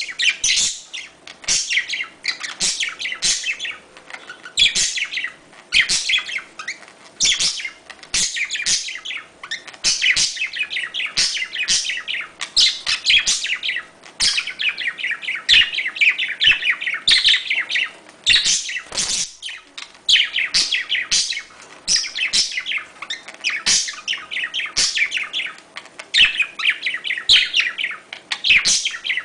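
Budgerigars chattering and warbling in a stream of rapid, high chirps, in clusters with brief pauses, which the uploader presents as the budgie mating call. A faint steady hum sits underneath.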